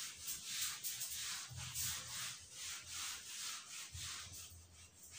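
Whiteboard being wiped clean with a hand-held eraser: a quick run of short rubbing strokes, about two to three a second.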